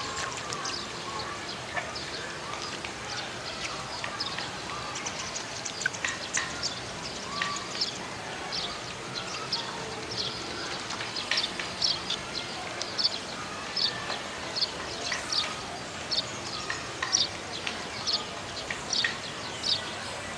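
Birds chirping: short, high, repeated chirps that come more often from about halfway in.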